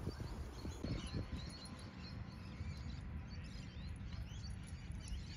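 Outdoor ambience of small birds chirping over a steady low rumble, with a few soft thumps in the first second or so.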